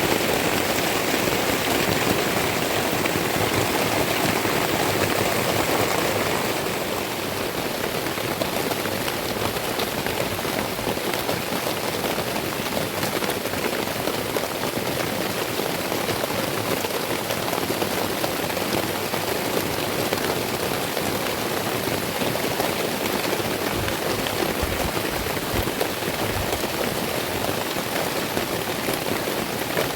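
Heavy rain falling steadily, a dense even hiss of drops striking surfaces; it eases slightly about seven seconds in.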